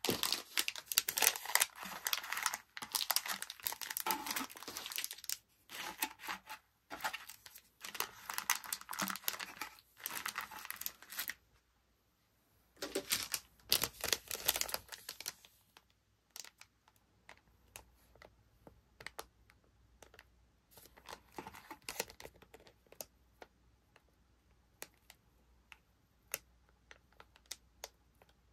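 Clear plastic packaging and tissue paper crinkling and rustling under the hands, dense for the first half, then a pause and one more short burst. After that come sparse light crinkles and taps as a packaged nail tip card is handled.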